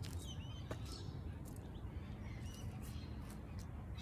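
Birds chirping in short, scattered calls over a low steady rumble, with a few faint clicks.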